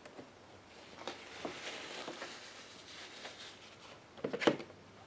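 Light handling noises: a soft rustle with a few small clicks, then a quick cluster of knocks about four and a half seconds in.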